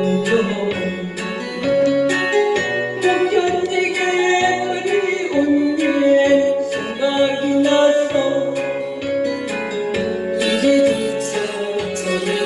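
A pop song: a singing voice over a backing track with guitar and a steady beat.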